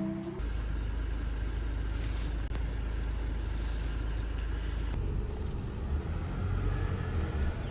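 Steady low rumble of a car on the move, road and engine noise.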